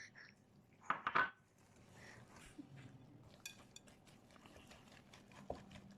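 A kitchen utensil knocking and scraping against a mixing bowl while butter is added to the cake batter, with a quick cluster of knocks about a second in and a few lighter clicks and taps after.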